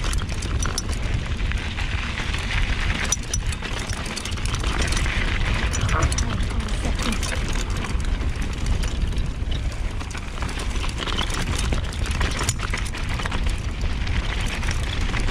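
Wind buffeting the camera's microphone with a steady low rumble as a mountain bike rolls along a dirt and gravel trail, with tyre crunch and frequent small rattling clicks from the bike over the bumps.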